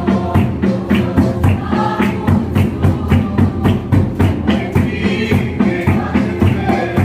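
Group of voices singing a hymn over a fast, steady drumbeat, about three beats a second.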